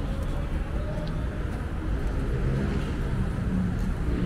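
Steady low rumble of city road traffic, with the faint drone of passing vehicle engines.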